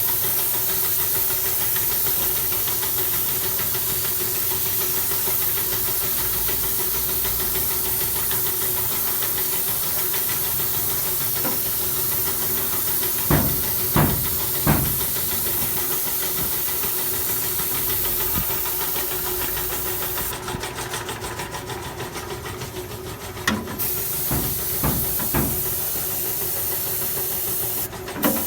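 Steady, loud hiss over a low hum, broken by three sharp knocks about halfway through and a few more near the end. The hiss thins for a few seconds about three quarters of the way in.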